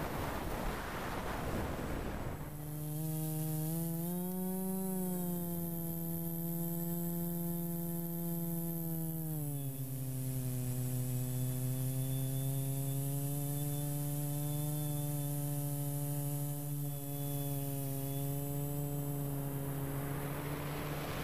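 Wind noise over the microphone for the first two seconds gives way to the steady pitched hum of the Matrix-S quadcopter's brushless motors and 15-inch carbon propellers. The hum rises slightly about four seconds in, drops in pitch about ten seconds in and holds lower, then gives way to wind noise again near the end.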